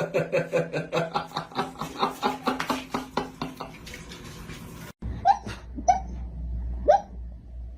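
A rapid run of laugh-like pulses, about five a second, for the first few seconds. After a sudden cut come three short, sharp hics rising in pitch, half a second to a second apart: a dog hiccuping.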